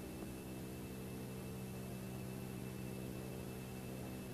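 Steady, faint electrical mains hum with a thin high whine above it, over soft hiss. Typical of the background of an old analogue video recording.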